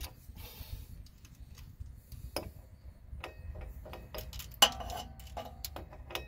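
Ratcheting socket wrench clicking in short irregular runs, with small metal clinks, as a nut on a replacement starter is worked overhead. The clicks come closer together in the second half, with one louder clack a little past the middle.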